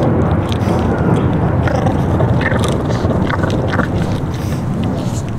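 A French bulldog puppy chewing raw chicken on the bone, with scattered short crunches and clicks, over a loud steady low rumble.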